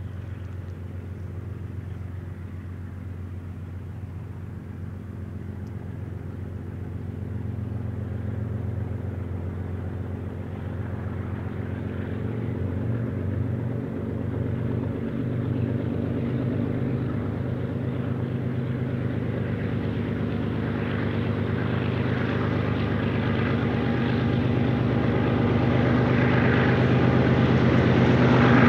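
Diesel locomotives on the head end of a BNSF intermodal train working under power, a steady engine drone with several low, held pitches, growing steadily louder as the train approaches.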